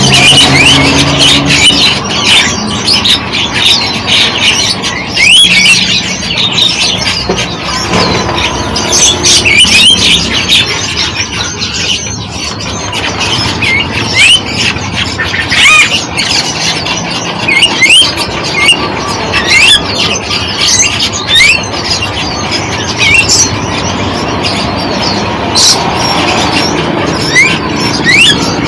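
Many small birds chirping and squealing at once: a dense, continuous chorus of short, shrill, quickly rising chirps.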